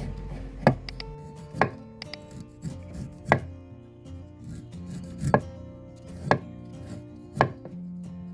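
Steel cleaver chopping slices off a firm, peeled ambarella (June plum) onto a wooden chopping board: six sharp knocks at uneven spacing, roughly one a second.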